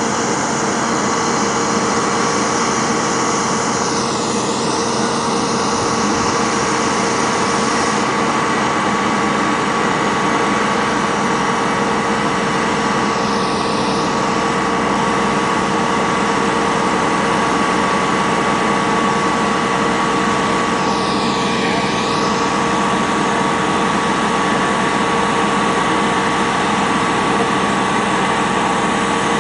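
Aerial ladder fire truck's engine running steadily at a raised idle to drive the aerial's hydraulics while the platform is lowered, a constant drone with a steady whine.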